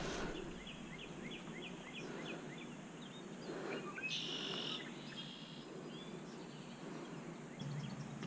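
Small birds calling over a faint outdoor background: a quick run of chirps, about four a second, for the first few seconds, then two short buzzy trills around the middle.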